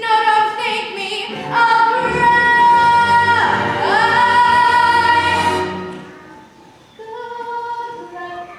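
Music from a stage musical: a woman's voice sings a long held high note with vibrato over accompaniment, fading out about six seconds in, after which softer singing resumes.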